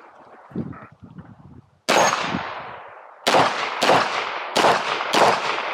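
9mm handgun shots: one shot about two seconds in, then a steady string of shots about 0.6 s apart, each with a fading echo tail.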